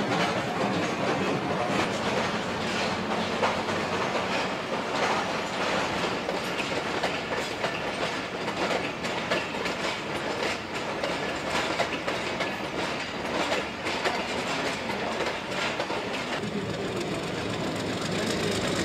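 A train rolling on the rails: a steady rumble with wheels clattering over rail joints and points. Near the end, a diesel locomotive's engine drone comes up underneath.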